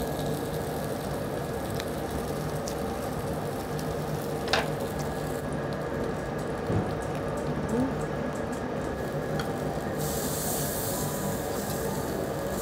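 Pork sizzling steadily on a tabletop barbecue grill, with soft chewing of a lettuce wrap. About ten seconds in the sizzle turns brighter and hissier.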